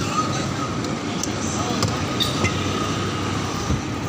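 Busy street noise: a steady rumble with people talking in the background and a few light clicks.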